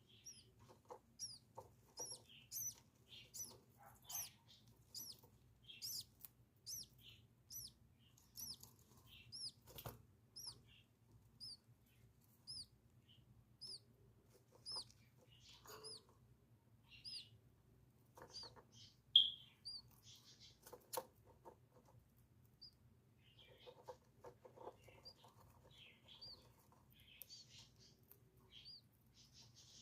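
Small pet birds chirping over and over in short, high chirps, about one or two a second, with scattered taps and rustling and one louder squeak about two-thirds of the way through.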